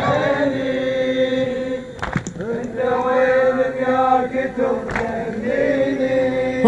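Male mourners' voices chanting together in a Shia Husseini lament, many voices over a steady held note, with two sharp slaps, one about two seconds in and one about five seconds in.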